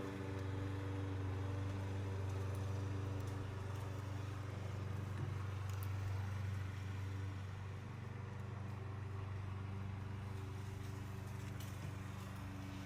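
Steady low hum with a few even overtones, like a motor or machine running, with a few faint clicks.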